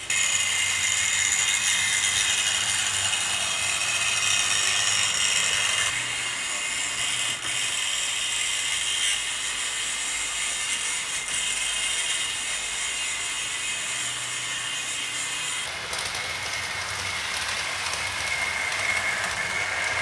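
OO gauge model trains running on track: small electric motors and gears whine steadily over rattling wheels. The sound shifts abruptly about six seconds in and again about sixteen seconds in.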